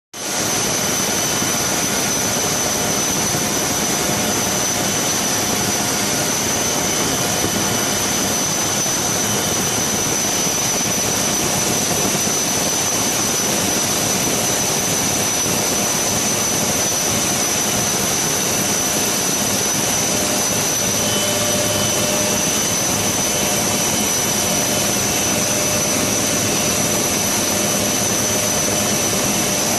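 HAL Dhruv helicopter's twin turboshaft engines and rotor heard from inside the cabin with the door open: a loud, steady rush of noise with a high turbine whine over it.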